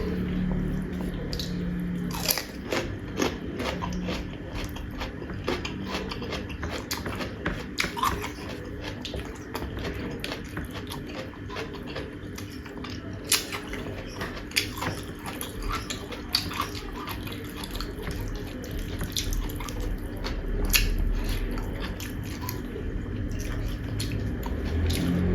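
Close-miked eating: chewing and wet mouth clicks with occasional sharp crunches, the sharpest about 13 seconds in and again near 21 seconds.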